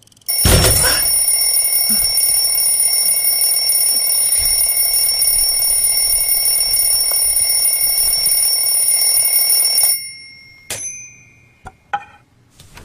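Alarm clock ringing loudly and without a break. It starts suddenly with a thump and cuts off abruptly after about ten seconds. A few short knocks follow near the end.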